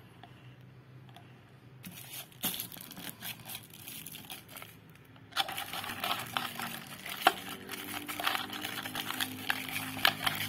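Plastic crinkling and tearing as a drinking straw is unwrapped, then louder crackling and clicking as the straw is pushed through a plastic dome lid and worked into the iced drink. It starts about two seconds in and grows denser about halfway through.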